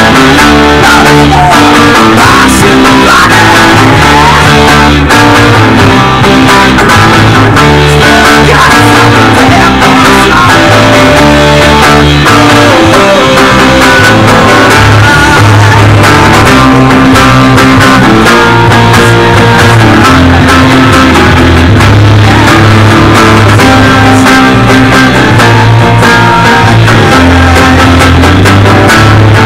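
A rock band rehearsing live, loud: electric guitar, bass guitar and acoustic guitar playing together over a moving bass line.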